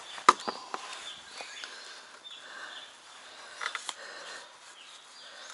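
Sharp metallic clicks and taps from hands working a bolt on a boat's metal bow-mount bracket: one loud click right at the start, a few lighter taps, then another small cluster of clicks a little before the end. Birds chirp faintly in the background.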